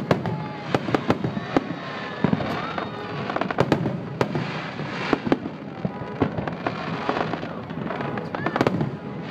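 Fireworks display: a dense, rapid run of sharp bangs from bursting aerial shells, several a second, over a continuous crackle.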